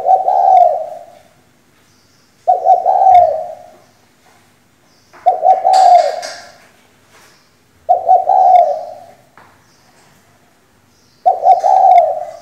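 Female spotted dove cooing: five calls about two and a half seconds apart, each a few quick notes running into a longer, fading coo.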